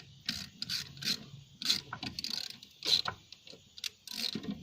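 Irregular small clicks and scrapes of a battery terminal nut being threaded by hand onto the auxiliary battery's terminal bolt and the cable lug being handled.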